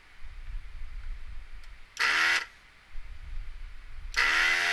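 Hakko 808 desoldering gun's built-in vacuum pump switching on in two short buzzing bursts of about half a second, one about two seconds in and one near the end. Each burst sucks the molten solder off one pin joint of a 20-pin IC.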